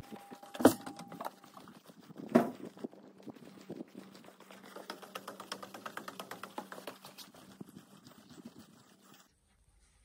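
Two sharp knocks, then a long run of quick light clicks, from handling the round plastic frame of a Daikin self-cleaning air-conditioner filter, with a faint steady hum underneath; the sounds stop shortly before the end.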